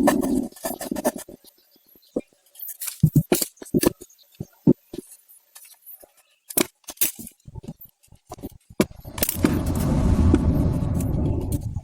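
Metal parts clinking and tapping in short, scattered knocks. About nine seconds in, a small homemade engine built from a refrigerator compressor starts and keeps running steadily with a low rumble.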